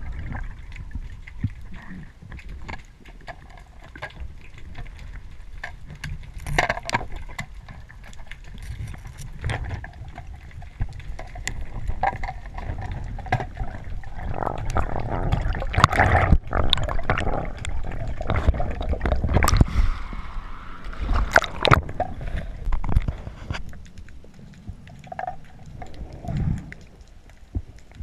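Muffled underwater water noise picked up by a camera in its housing: a low rushing and gurgling wash, with many short clicks and knocks scattered through it.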